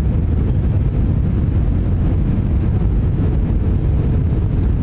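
Steady low rumble of an Airbus A320's engines and rushing air, heard inside the passenger cabin during the descent to land.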